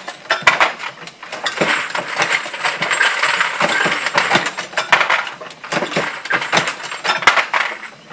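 Many quick metallic clicks and clinks of cast lead bullets and brass cases being handled at a Dillon 650 progressive reloading press.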